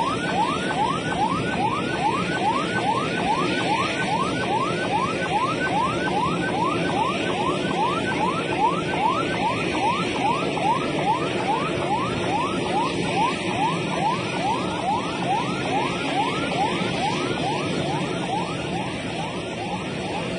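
Emergency vehicle siren wailing in quick rising sweeps, about two and a half a second, over steady background noise; it fades near the end.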